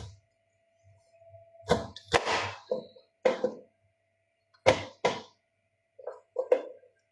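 A series of short, sharp knocks and clatters, about eight in all and irregularly spaced, like hard objects being handled and set down while cooking.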